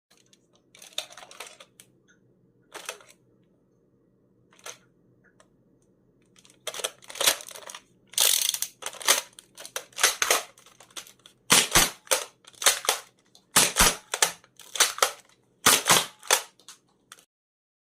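Nerf Elite Strongarm foam-dart blaster being primed and fired over and over: sharp plastic clacks and pops, a few scattered at first, then coming quickly in pairs in the second half.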